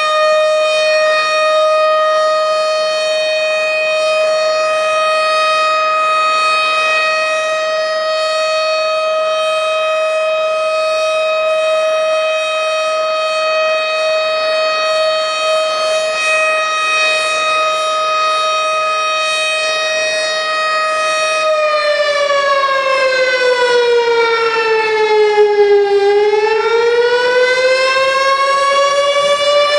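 Tornado warning siren sounding one steady tone for about twenty seconds. Then its pitch slides down and climbs back up again near the end.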